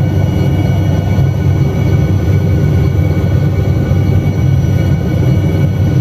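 Bell 47 helicopter running steadily in flight, its engine and rotor giving a constant low drone with a steady whine above it.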